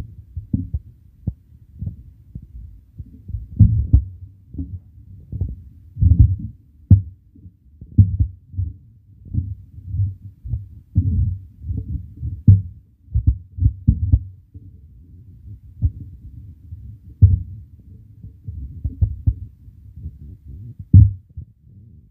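Irregular dull thuds of a red silicone spatula tossing and pressing flat rice noodles against a black non-stick wok, several knocks a second with short pauses.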